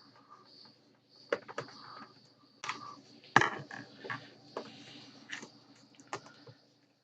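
Small parts and tools being handled on a workbench: scattered light clicks and knocks at irregular intervals, the loudest about three and a half seconds in.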